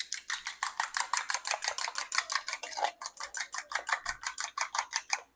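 Eggs being beaten in a bowl: a fast, even clicking of about eight strokes a second that starts and stops abruptly.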